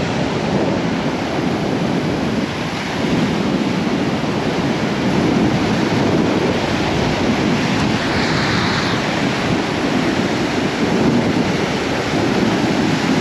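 Surf breaking and washing up a sandy beach in a steady wash of noise, with wind buffeting the microphone.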